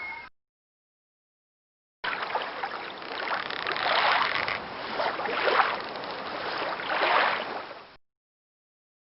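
Sea waves washing onto a beach. After a second and a half of dead silence the surf cuts in, rises and falls in three surges, then cuts out to silence again.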